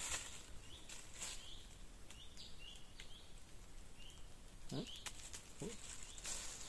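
A bird calling in short, repeated high chirps, about two a second, with a few scattered clicks.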